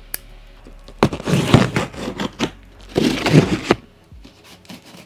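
Packing tape being torn from a large cardboard box as it is opened: two rough, scraping tears, the second shorter, with a click just before them.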